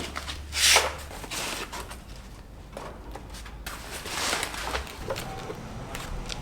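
Workshop handling noises: short rasping scrapes and scattered clicks and knocks as motorcycle tail-light and fairing parts are handled and fitted.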